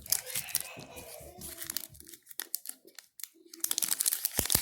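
Wrapper of a trading-card booster pack crinkling and tearing as it is opened and handled. The dense crackling eases off in the middle and grows louder again near the end.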